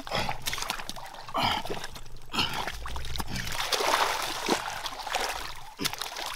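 Hands digging and scooping in wet mud and shallow muddy water, with irregular splashes and trickling water.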